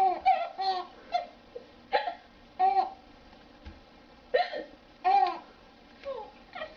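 A woman hiccupping again and again: short, sudden, voiced hiccups, some in quick pairs, with pauses between them, mixed with bits of laughter.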